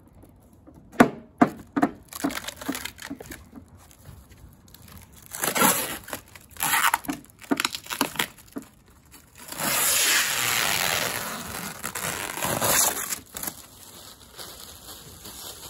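Plastic wrapping being torn and pulled off a cooler: crinkling with sharp snaps about a second in and more crinkly pulls in the middle, then a long steady rip from about halfway to near the end as the blue protective film is peeled off the lid.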